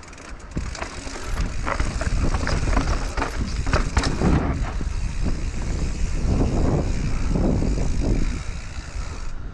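Mountain bike descending a rough dirt and rock trail: wind rumbling on the camera microphone, tyres crunching over dirt and the bike rattling and knocking over bumps. It gets louder about a second in and eases off near the end as the bike rolls onto smooth road.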